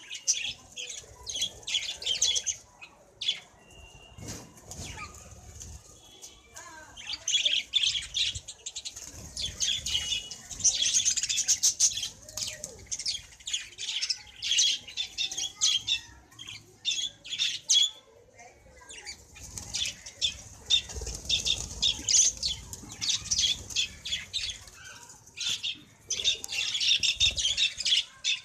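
Budgerigars chattering and chirping in bursts of rapid, high notes that come and go every few seconds.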